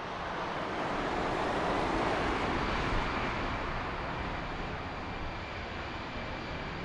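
Jet airliner engines rushing past, the noise swelling to a peak a couple of seconds in and then easing off, with a faint high turbine whine gliding early on.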